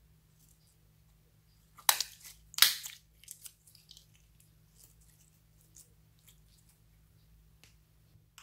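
Clear glitter slime being squeezed and stretched in the hands: two loud crackling pops about two seconds in, followed by a run of smaller crackles and clicks that die away.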